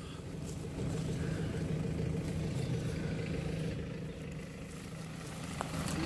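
A vehicle engine idling steadily with a low, even hum.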